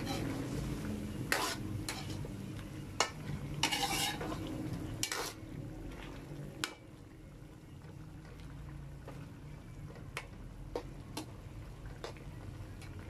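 Metal spoon stirring chicken livers and gizzards in an aluminium wok, scraping and clinking against the pan, over the faint sizzle of the reducing adobo sauce. The strokes are busy in the first half and thin out to a few light clinks later.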